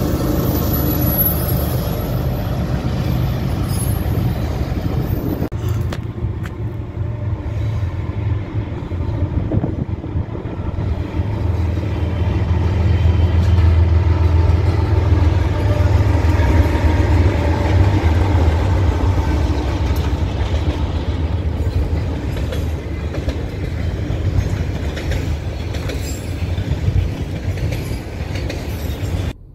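Freight train passing close by: the deep rumble of a Canadian Pacific diesel locomotive and a BNSF diesel locomotive, loudest as they go by about halfway through. Then the steady rolling noise of autorack freight cars, which cuts off suddenly near the end.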